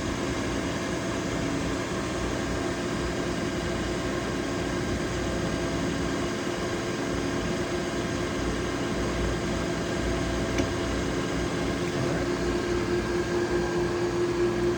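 GMC GMM-949V vertical milling machine running steadily under power, a constant hum with several steady tones and a faint click about ten seconds in.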